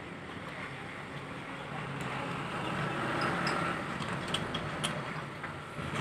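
Steady background rumble of passing road traffic that swells about halfway through and eases off, with a few faint small clicks.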